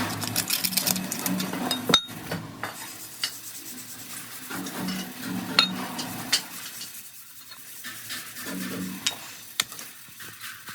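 Hand work on metal parts: scattered clinks and knocks, the sharpest about two seconds in, over scraping and rustling, with a low hum coming and going.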